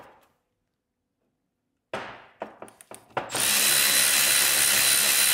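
A few clicks and knocks as a socket is set onto the 30 mm nut on a brake caliper's pad-retaining pin. About three seconds in, a cordless impact wrench starts running on the nut to undo it, loud and steady.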